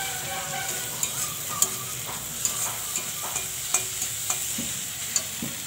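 Prawns, tomatoes and chillies frying in oil in a kadai with a steady sizzle. A metal spatula stirs them, clicking and scraping against the pan repeatedly.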